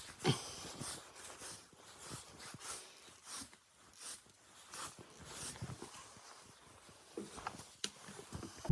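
Quiet, scattered clicks and light knocks with soft rustling, as of small things being handled; the sharpest knock comes about a third of a second in, with a few more near the end.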